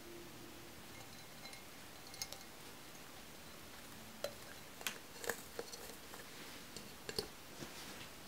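A glass jar being handled and lowered over an arrangement of artificial plants onto a wooden base: faint, sharp taps and clicks, a few at first and more in the second half.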